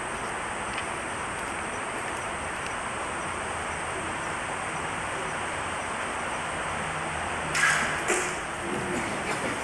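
Steady hiss of old video-tape audio, then near the end a Japanese longbow (yumi) is loosed: a sharp crack of the bowstring, followed about half a second later by a second sharp crack as the arrow strikes the target. Faint voices follow.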